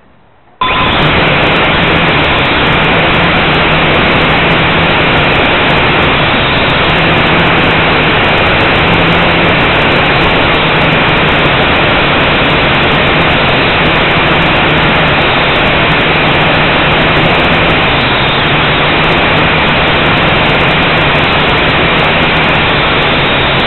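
Blade 180 quadcopter's motors and propellers, heard through its own onboard camera microphone, starting up about half a second in and then running loud and steady, with a low hum that wavers slightly in pitch as it flies.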